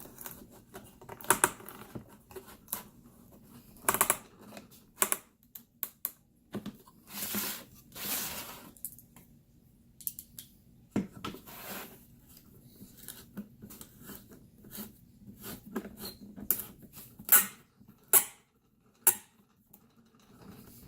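Steel T-nuts being screwed into a wooden module's feet with a T-handle Allen key: irregular small clicks and short scraping turns of metal on wood and metal, with a few sharper clicks standing out, the loudest late on.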